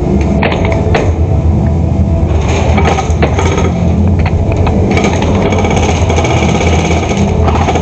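Rapid clattering bursts of airsoft electric guns firing, with the clicks and knocks of BBs striking hard surfaces, over a steady low rumble.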